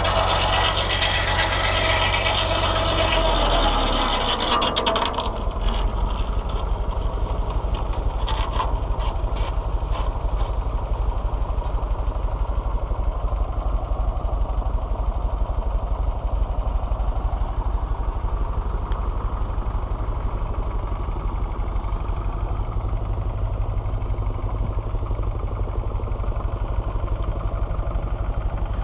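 Large inserted-tooth circular saw blade of a rack sawmill cutting through a log for the first few seconds. The cut then ends, leaving the Fordson Power Major tractor engine that drives the saw through its PTO running steadily, with an even low pulsing beat.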